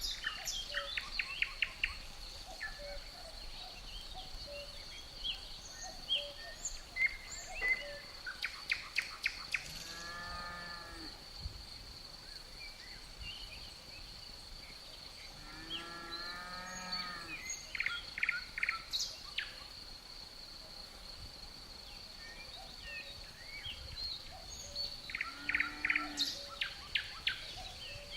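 Forest ambience: crickets giving a steady high trill under scattered birdsong of short chirps and quick trills. Two low, drawn-out animal calls come about ten and sixteen seconds in.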